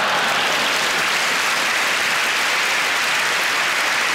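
Large theatre audience applauding in a steady, dense wash of clapping.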